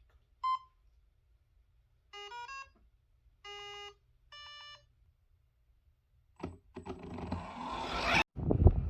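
A single short electronic beep, then three short bursts of electronic tones, the first of which steps in pitch. After that, a whooshing noise swells over about two seconds and cuts off suddenly.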